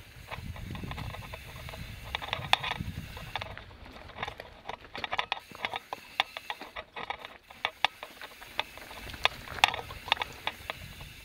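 Mountain bike riding over a rocky trail: a quick, irregular run of sharp clicks and knocks from the bike and its tyres, over a low rumble that is heaviest in the first few seconds and again near the end.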